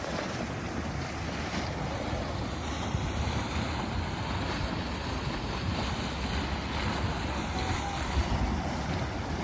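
Steady wind buffeting the microphone, a continuous rushing noise with a low rumble and a few slightly louder gusts.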